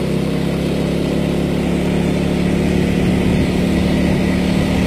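Small motor scooter's engine running at a steady cruise while being ridden, a hum that holds one pitch.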